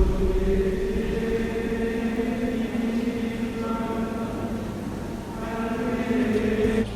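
Music of choir-like voices holding long, steady notes in a slow chord, with higher notes joining about halfway through.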